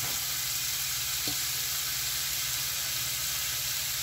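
Diced bacon and onion sizzling steadily as they fry in hot oil in a nonstick pan, with one light knock about a second in.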